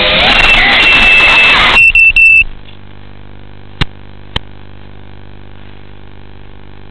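Racing quadcopter's motors and propellers whining loudly, the pitch shifting with throttle; about two seconds in the sound breaks up in a few choppy bursts and cuts out as the drone comes down into tall vegetation. What remains is a steady low hum with two sharp clicks.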